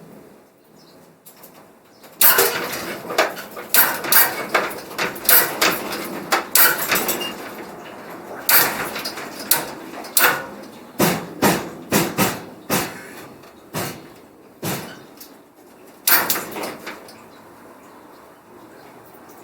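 A run of irregular knocks and clatters, as of hard objects being handled and set down, starting about two seconds in and dying away near the end.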